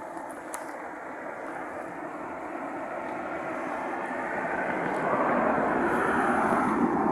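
A vehicle passing on the street: its noise builds steadily, is loudest late on, then starts to fade.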